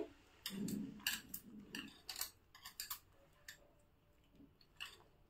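Faint, irregular light clicks and clinks of hands squeezing lumps of jaggery in milk in a small stainless-steel bowl, about a dozen over the first three seconds and one more near the end.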